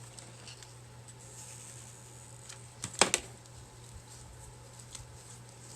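Quiet handling noise from crafting with rope and a clay pot: a couple of sharp clicks about three seconds in, the second the loudest, over a faint steady hum.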